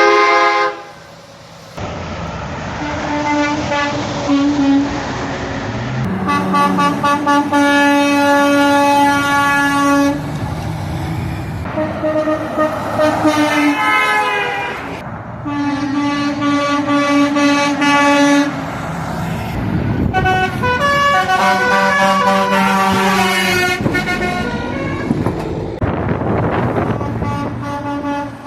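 Semi-truck air horns honking in a series of long, loud blasts, each a steady chord lasting a few seconds, with passing-truck road noise between them.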